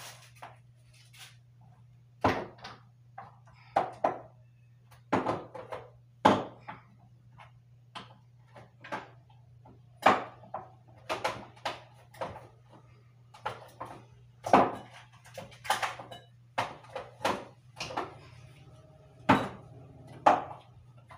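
Irregular knocks and clatters of things being handled and moved about inside a wooden wardrobe, with its doors and shelves knocking, over a steady low hum.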